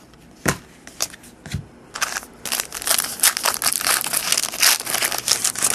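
Crinkling of a trading-card pack's wrapper as it is handled, dense and continuous from about two seconds in, after a few light clicks of cards being moved.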